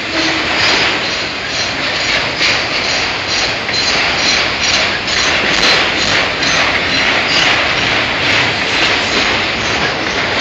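Loaded autorack freight cars rolling past, their steel wheels making a continuous clatter on the rails, with frequent irregular clicks and rattles.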